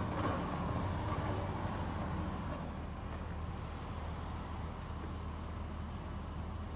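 Heavy demolition machine's diesel engine running steadily with a low hum, a little louder at first and settling after a couple of seconds.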